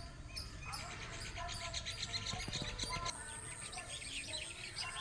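Many small birds chirping and twittering in a dense chorus, with a thin, steady high-pitched tone setting in about three seconds in.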